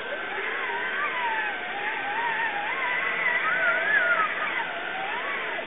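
Electric motor and gearbox of an RC4WD Trail Finder 2 scale crawler whining as it drives, the pitch rising and falling with the throttle and peaking about four seconds in before dropping away.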